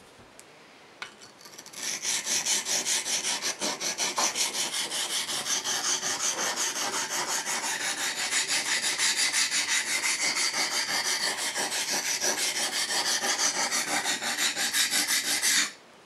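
Steel knife blade stroked back and forth on a sharpening stone: a rhythmic scraping at about three strokes a second. It starts about two seconds in and stops suddenly near the end.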